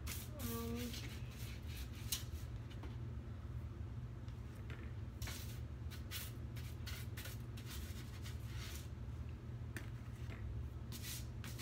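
Intermittent rustling and light clicks of things being handled on a kitchen counter, coming in short irregular bursts, over a steady low hum.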